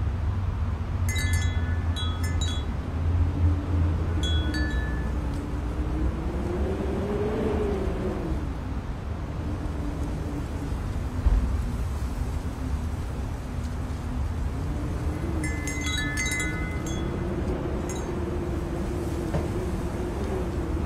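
Bright chime tones ringing in short clusters, a few near the start and another run about three-quarters of the way through, over a steady low hum that slowly rises and falls in pitch.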